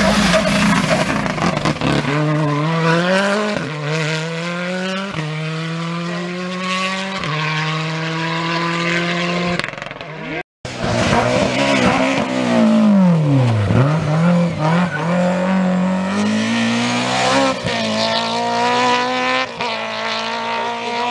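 Rally car engine accelerating hard, its pitch climbing and dropping back with each upshift, about four gear changes in quick succession. After a short break the revs fall away sharply and rise again, then the engine climbs through the gears once more.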